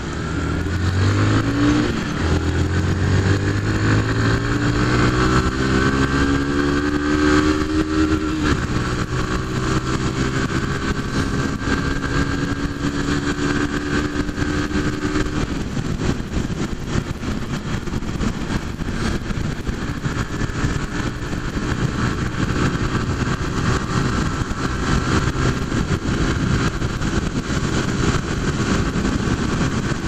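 Single-cylinder engine of a Honda CG 150 Fan motorcycle accelerating hard, climbing in pitch with upshifts about two seconds in and again at about eight and a half seconds. It then settles into steady highway cruising, with heavy wind noise on the microphone.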